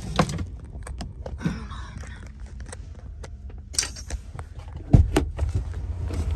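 Freightliner semi truck's diesel engine idling as a steady low rumble inside the cab, with keys jingling and a few clicks and knocks of handling; the loudest knock comes about five seconds in.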